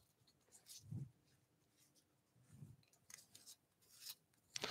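Near silence, with a few faint rustles of a glued-on paper pattern being peeled off a small piece of cut wood.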